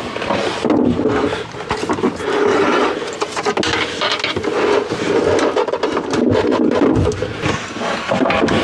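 Blue Victron battery cases scraping and knocking against a wooden compartment frame as they are handled and lowered into place, a run of irregular bumps and rubbing.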